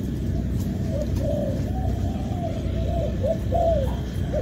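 Several spotted doves cooing over one another, a steady run of short, arched, low coos with no pause.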